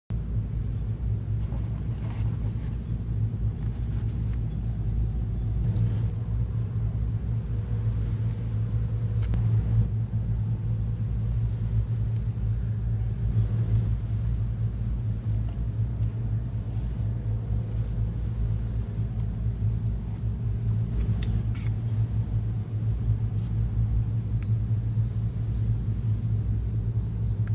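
A steady low rumble, with a few faint bird chirps near the end.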